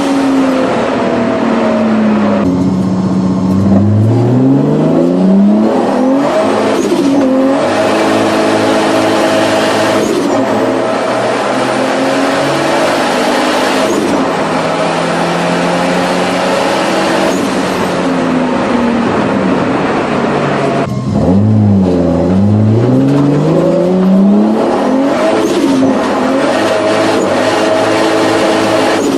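Tuned car engine accelerating hard and revving, its pitch climbing and dropping back several times.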